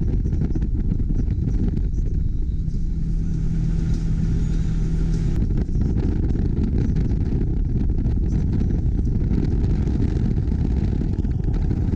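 Side-by-side UTV driving on a dirt road, heard from inside its open cab: a steady, loud, low-pitched run of engine and road noise that does not rise or fall.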